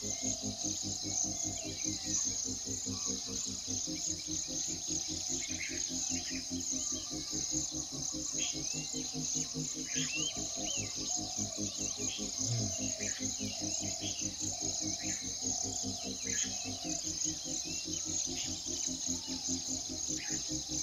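A steady, high-pitched insect chorus like crickets, with short bird chirps scattered through it, over a low, evenly pulsing background.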